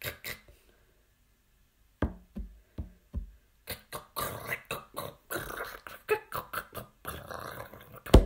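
Beatbox-style vocal percussion. A click opens it, four single clicks follow about 0.4 s apart from about two seconds in, then a fast run of clicks and pops, with the loudest hit near the end.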